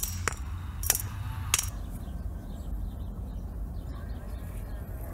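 Four sharp clicks in the first second and a half, each a brief hard impact, over a steady low rumble.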